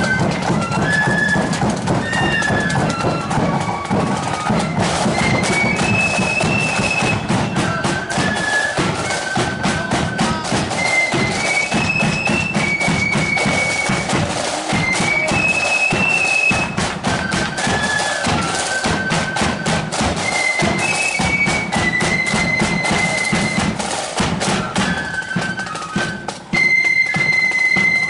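Marching flute band playing a tune: many flutes in unison carrying a stepping melody over bass drum and drums beating a steady march time. Near the end the level dips briefly, then the band comes back louder.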